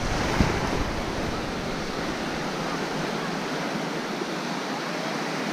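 Small ocean waves breaking and washing up on a sandy shore in a steady surf wash. Wind buffets the microphone for the first couple of seconds, then eases.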